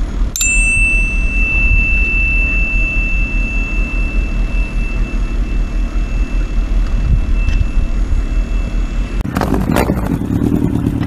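Yamaha FJ1200's inline-four engine idling with a steady low pulse while the carburetor balancing screws are turned, a thin high steady tone ringing over it. About nine seconds in, the engine sound gives way to a noisier, rushing sound.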